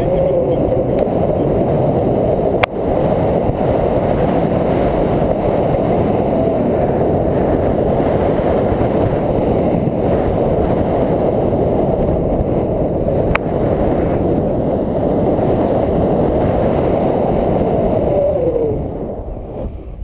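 Loud wind rushing and buffeting on an action camera's microphone in flight under a tandem paraglider, as the glider swings through a steep banked manoeuvre. The rush sets in at the start and dies away near the end, with two sharp clicks along the way.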